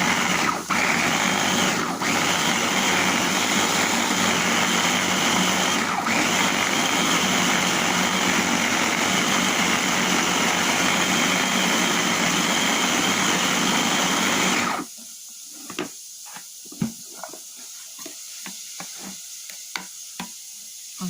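Electric kitchen grinder running steadily as it grinds dried figs, garlic and olive oil into a paste. It cuts off abruptly about fifteen seconds in, followed by light clicks and knocks.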